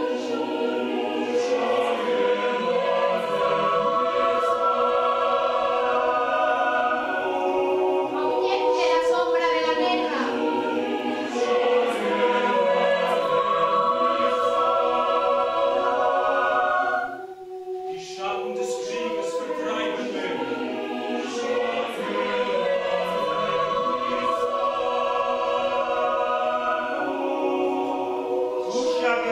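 Mixed choir of men and women singing held, sustained chords, with a short break in the sound a little past halfway before the singing resumes.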